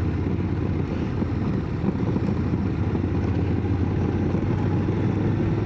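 Motorcycle engine running at a steady speed while riding, under a steady rush of air and road noise.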